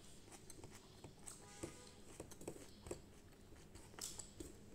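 Faint eating sounds: quiet chewing and a few small ticks and taps as fingers mix rice on a steel plate.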